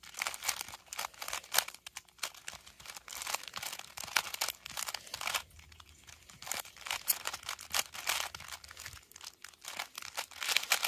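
A 3x3 Rubik's Cube being turned quickly during a speed solve: rapid, irregular clicking and clacking of its plastic layers, in flurries broken by brief pauses.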